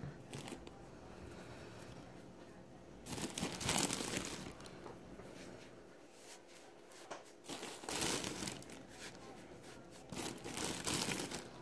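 Toy stuffing being handled and pushed into a crocheted arm: a crinkling rustle in three bursts, about three, seven and a half and ten seconds in.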